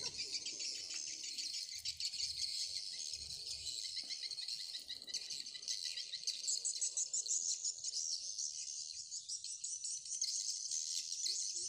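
Dense chorus of insects, crickets chirping in rapid pulses, a little louder in the second half.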